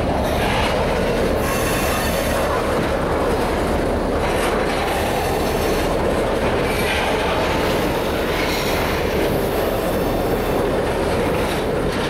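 Crude oil train's tank cars rolling past: a steady rumble and rattle of steel wheels on the rails, with brief high-pitched flare-ups every couple of seconds.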